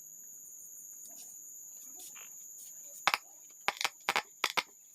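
Crickets trilling steadily in the background. In the second half, a quick run of about six sharp clicks or knocks.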